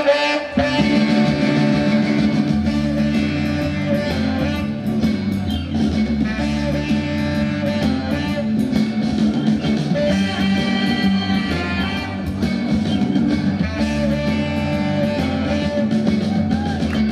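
Rock music with guitar playing continuously over a beat.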